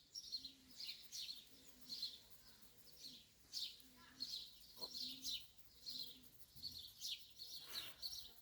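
Small birds chirping faintly and repeatedly, short high notes about once or twice a second.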